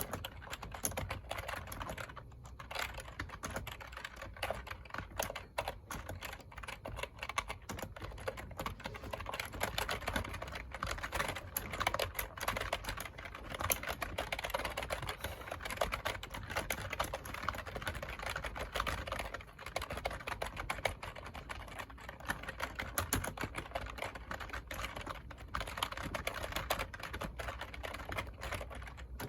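Continuous fast typing on a computer keyboard: a dense stream of key clicks, many a second, with brief pauses about two seconds in and again around twenty seconds in.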